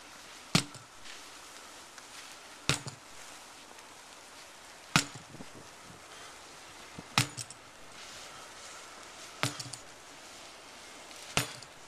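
Heavy hammer strikes, one about every two seconds, six in all, each a sharp blow with a short rattle after it, in a sledgehammer workout.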